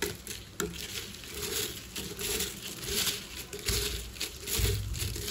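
Crisp fried onion pakodas crackling and rustling as a hand scoops and crumbles them on a paper towel, a run of irregular crackles with a few low thumps near the end. The brittle crackle is the sign they have fried crisp rather than soft.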